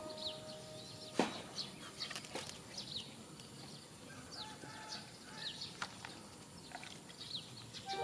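Small birds chirping in the background with short, falling chirps scattered throughout. A few sharp clicks come through, the loudest about a second in.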